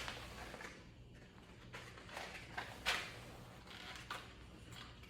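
Faint rustling and small clicks of fishing tackle being handled while a hook is fetched, with one sharper click about three seconds in.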